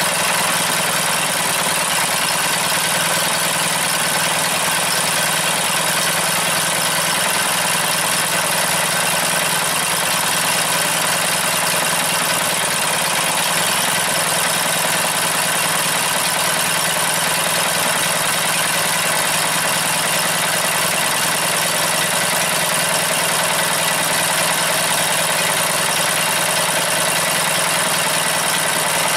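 Briggs & Stratton 18 hp horizontal-shaft engine on a riding mower running steadily with the choke pushed in, sounding decent. It has just been started on a newly replaced starter.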